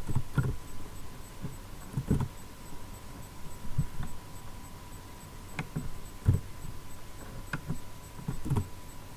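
Scattered computer keyboard keystrokes, single clicks and knocks spaced about a second apart, the loudest about six seconds in, over a faint steady whine.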